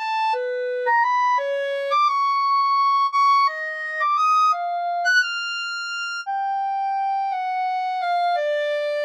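Solo clarinet melody from Sibelius notation-software playback: a single line of slurred notes moving up and down, several held for about a second.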